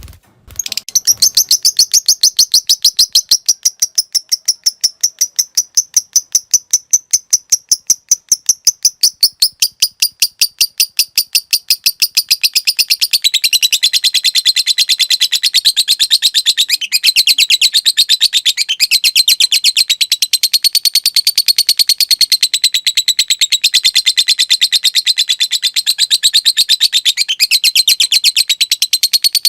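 Lovebird singing a long, unbroken 'ngekek' chatter: a rapid string of high, evenly repeated notes that starts about half a second in and runs on without a pause. After about twelve seconds the chatter grows denser and a little lower. This is the long-duration ngekek prized in Indonesian lovebird song contests.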